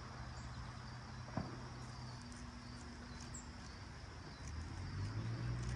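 Faint handling of a rubber fuel hose being pushed onto a primer bulb's fitting, with one short click about a second and a half in. A low rumble rises near the end.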